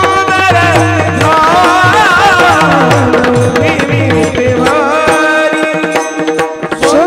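Warkari kirtan music: a male voice singing an ornamented, wavering melodic line over steady held notes and regular mridang drum strokes. The drum strokes drop out briefly near the end.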